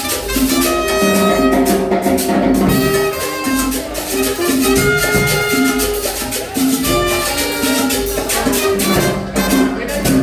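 Live cumbia played by an acoustic band: a melody of held notes over a steady, even percussion beat.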